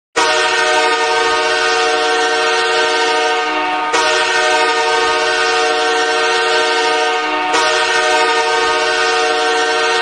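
Los Angeles Kings goal horn sounding three long, many-toned blasts back to back, each about three and a half seconds long.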